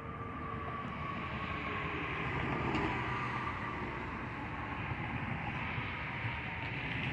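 Road traffic going by: a steady hum of passing cars and trucks with a faint falling whine, swelling a little about two to three seconds in.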